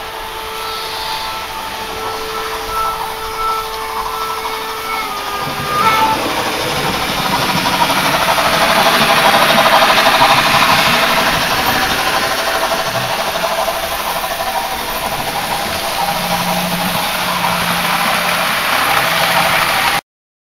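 Märklin model steam locomotive (BR 01) running along the layout track, its rolling and motor noise growing louder to a peak as it passes close by about ten seconds in, then easing off. A few steady whining tones are heard in the first five seconds, and the sound cuts off abruptly near the end.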